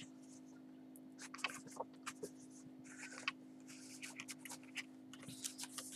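Paper rustling and sliding as the cardstock pages of a handmade envelope journal are turned and a card is handled, with scattered light taps and clicks.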